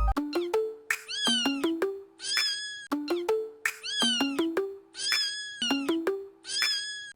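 A cat-meme sound clip: recorded cat meows set over short plucked notes. The phrase repeats about every two and a half seconds, each time two meows that rise and fall followed by a flatter one.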